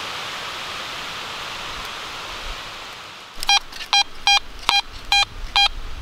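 Fisher F19 metal detector sounding off on a buried metal target: six short, same-pitched beeps about 0.4 s apart in the second half, over a steady hiss that fades.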